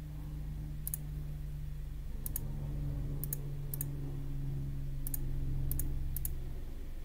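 Scattered sharp clicks of a computer mouse, some in quick press-and-release pairs, over a steady low hum.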